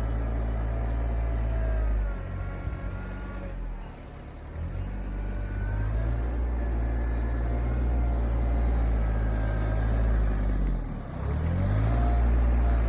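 RK24 compact tractor's engine running hard, sagging twice in pitch and loudness as it bogs under load and then recovering, typical of pushing a heavy pile with the loader.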